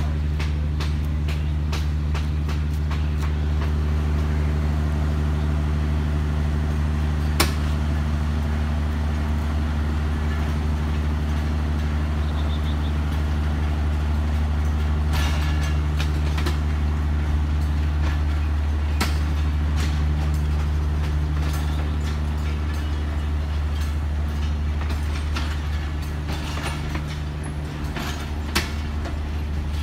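Bangladesh Railway intercity passenger train pulling slowly out of a station: the coaches roll past over a loud, steady low hum, with irregular clicks and clanks from the wheels and couplings.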